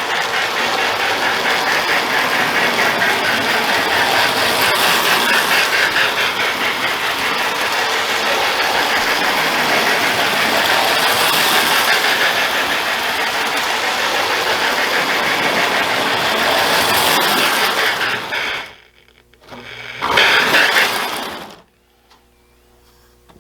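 Marx electric toy train running on its track: a steady, fast mechanical clatter of motor, gears and wheels that stops about 18 seconds in, then starts up again briefly for a second or so.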